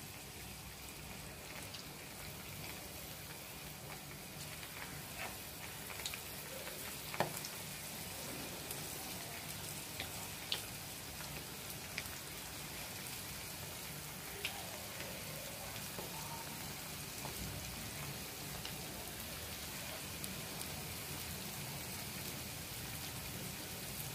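Batter-coated chicken pieces deep-frying in hot oil in a kadhai: a steady sizzle with a few sharper pops now and then as more pieces are dropped in. The oil is at medium heat, frying chicken pakoras.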